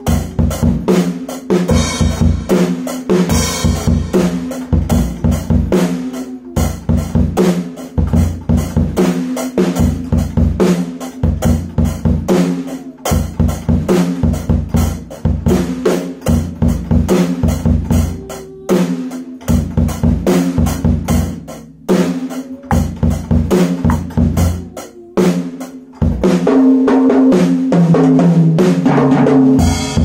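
PDP junior drum kit played by a young child: a steady run of bass drum and snare hits with cymbal wash. Over the last few seconds the hits run together into a dense, continuous roll.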